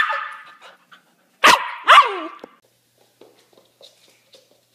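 Dog giving three short barks, each falling in pitch: one at the start, then two in quick succession about a second and a half later.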